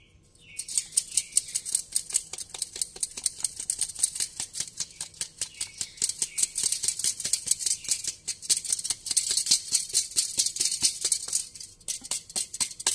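Flour being sifted through a hand sieve into a mixing bowl: a fast, even rattle of light taps, several a second, starting about half a second in.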